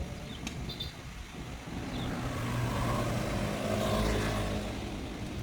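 An engine running, swelling louder through the middle and easing off near the end.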